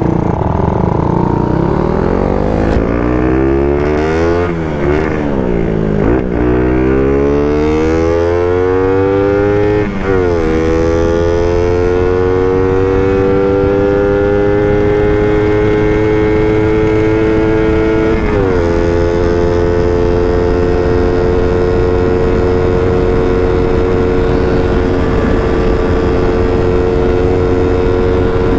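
Yamaha Sniper 135's single-cylinder four-stroke engine accelerating hard through the gears. The pitch climbs and drops back at four upshifts over roughly the first 18 seconds, then holds steady at high revs, with steady wind noise underneath.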